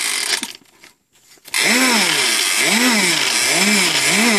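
Gas 'n Go Mower toy's electronic engine sound effect: a buzzing small-engine noise that revs up and down. It cuts out about half a second in, starts again about a second and a half in, then revs four times in quick succession.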